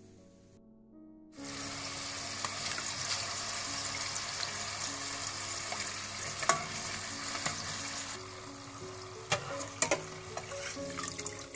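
Golgappa puris deep-frying in hot oil, a steady sizzle that starts about a second in as they are pressed under with a metal slotted spoon to puff up. A few sharp clicks of the spoon against the pot, once in the middle and twice near the end.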